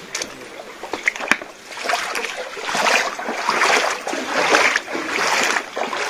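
Water splashing and sloshing in a shallow rock-cut pool, irregular and growing louder from about two seconds in, with a few light knocks before it.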